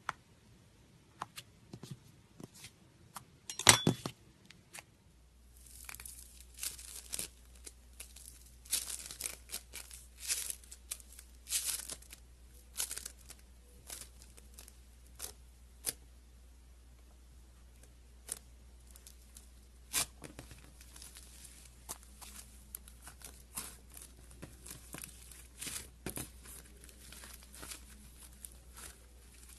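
Slime being stretched, squeezed and pulled apart, giving irregular sticky crackles, pops and tearing sounds, with a loud sharp pop about four seconds in.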